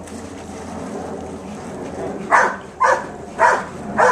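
A dog barking four times in quick succession, about half a second apart, in the second half.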